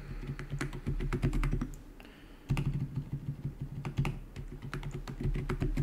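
Typing on a computer keyboard: quick runs of key clicks as a password is entered, with a brief pause about two seconds in.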